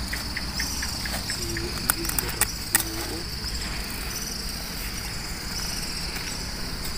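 Steady chorus of crickets chirping, with a few sharp clicks around two to three seconds in.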